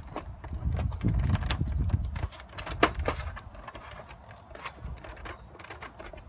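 Plastic clicks and knocks from a tower fan's casing being handled and wiggled apart by hand, with a low handling rumble in the first two seconds and one sharp click near the middle.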